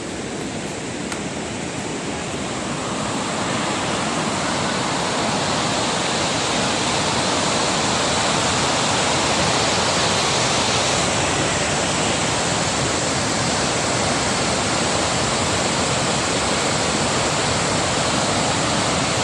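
Waterfall rushing in a steady, dense roar of falling water, growing louder over the first few seconds and then holding steady.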